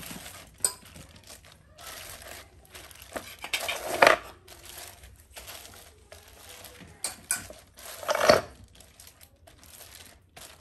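Plastic sheet crinkling and rustling under a rolling pin as flatbread dough is rolled out on it, in irregular strokes with louder crinkles about 4 and 8 seconds in.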